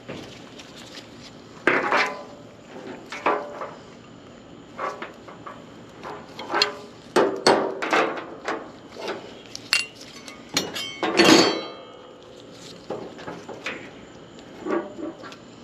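Irregular hard clicks, knocks and clinks of a dryer door switch and tools being handled against the dryer's sheet-metal cabinet as the switch is worked loose. The loudest is a longer rattle about two-thirds of the way through.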